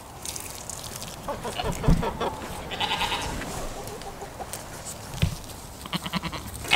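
Goats bleating: one short call about three seconds in and another near the end, among a few dull knocks.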